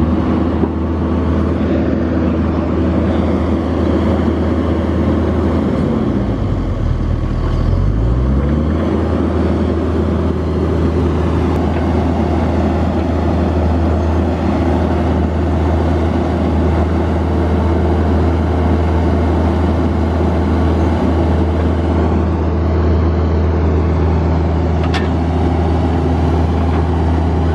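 John Deere 50G compact excavator's diesel engine running steadily while the machine is worked. About six seconds in, the engine speed drops and then climbs back up.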